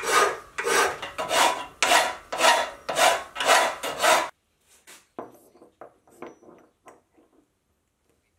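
Hand file rasping in steady back-and-forth strokes across a metal block clamped in a bench vise, about two strokes a second, stopping abruptly about four seconds in. A few faint metallic clicks follow as the filed part is test-fitted into its mating piece.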